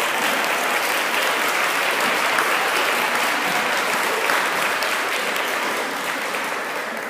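An audience of students and guests applauding, a dense, steady clapping that eases off slightly near the end.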